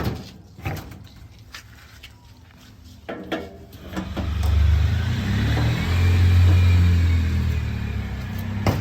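A few knocks and clicks, then about four seconds in a heavy diesel engine comes up to a loud, deep, low running under load, holding for several seconds before easing slightly.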